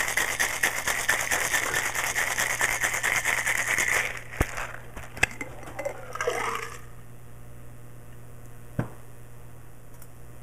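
Ice rattling hard in a metal cocktail shaker being shaken, a fast steady rattle for about four seconds. Two sharp knocks follow, then the strained drink pours briefly from the shaker tin into a glass, about six seconds in.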